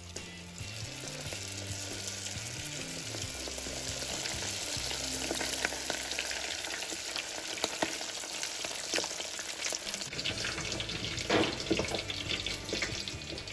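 Money bags deep-frying in hot oil: a steady sizzling hiss full of crackles and pops that starts as they go into the oil, with the sharpest pops near the end. Faint background music sits under it in the first few seconds.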